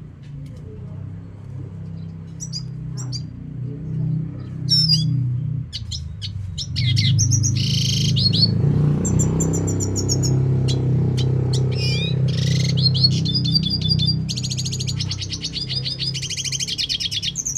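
Pet finch singing: scattered short chirps at first, then from about seven seconds in long runs of rapid, buzzy trills and rattling phrases. A steady low hum runs underneath.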